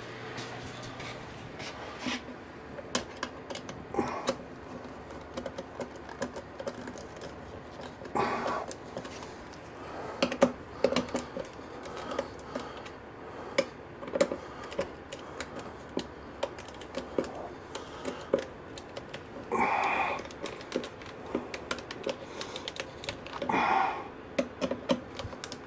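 A hand screwdriver working screws in a wall-fan mounting bracket: many small, irregular clicks and taps, with a few brief louder scraping noises.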